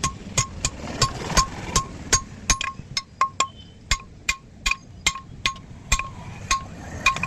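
Hammer blows on hot steel at an anvil, about three a second in an uneven rhythm. Each blow is sharp and rings briefly with the same metallic pitch.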